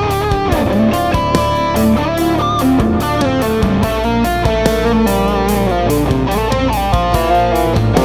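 Overdriven Ibanez electric guitar playing a melodic single-note lead line with bent notes, over a backing track with a steady drum beat and bass.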